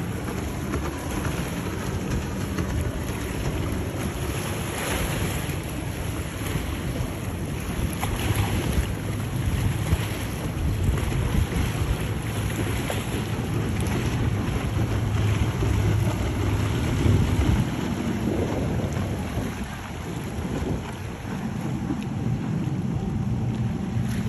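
Outboard engines of center-console fishing boats running at speed, a steady low drone, with wind on the microphone and choppy water.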